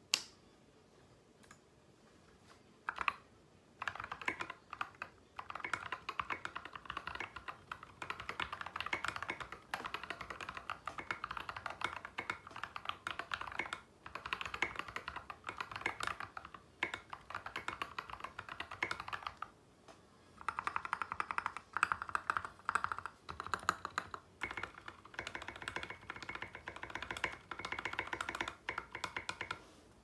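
Typing on an NK65 Entry Edition mechanical keyboard with lubed Durock JWK Koala tactile switches and SA keycaps: fast runs of popping keystrokes, starting about three seconds in and broken by a few short pauses.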